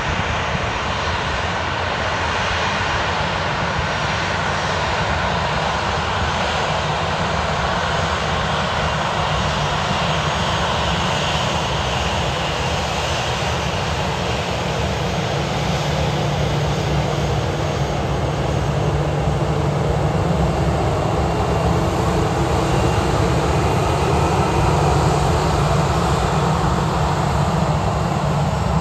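Boeing 737-800 jet engines running at taxi power: a steady engine noise as the airliner rolls past, growing a little louder in the second half.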